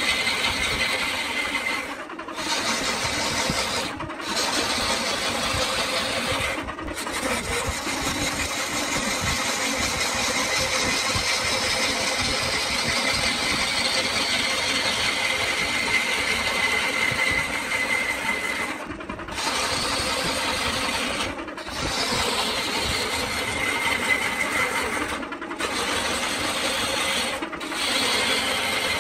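Wood lathe running while a hand-held turning tool cuts into a spinning coconut palm log: a steady scraping hiss of the cut with a high whine over the motor. The cutting noise dips briefly about seven times.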